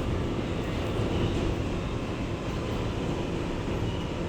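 Steady rumble and hum inside an R211A subway car, with no distinct clicks or announcements, easing slightly in loudness.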